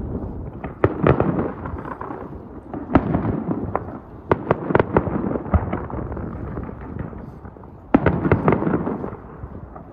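Aerial fireworks shells bursting in a string of sharp bangs, with clusters of reports about four to five seconds in and again about eight seconds in, over a continuous low rumble.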